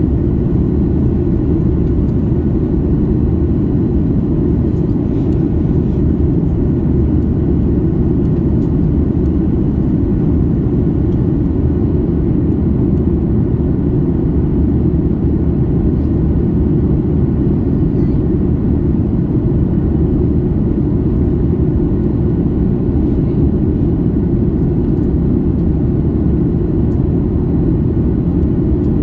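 Steady cabin noise inside a Boeing 737 MAX 8 airliner during descent: a loud, even low rumble of airflow and the CFM LEAP-1B engines, unchanging throughout.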